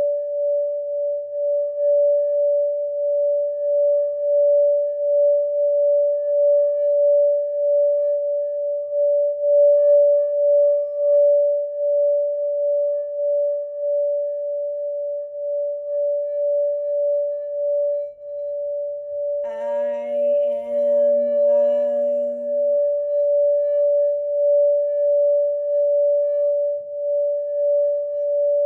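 Sacral chakra singing bowl held in one steady, high ringing tone, pulsing slowly and evenly. About two-thirds of the way through, a second pitched sound with wavering overtones joins for about three seconds.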